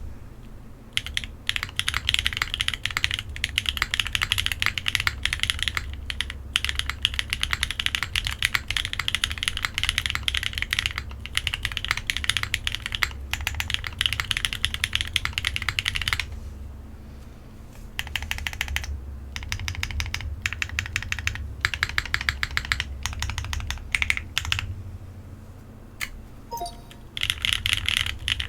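Typing on a 60% custom mechanical keyboard with SOTC switches, GMK keycaps, an aluminium plate and no case foam: quick runs of keystroke clacks, pausing briefly twice and resuming with fast typing near the end.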